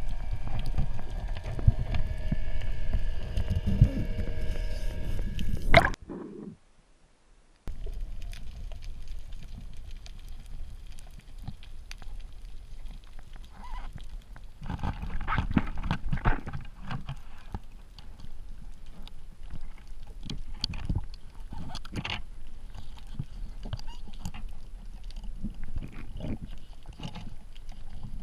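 Underwater sound picked up by a diver's camera: a steady droning hum with water noise that cuts off about six seconds in, then quieter water sound with scattered clicks and knocks.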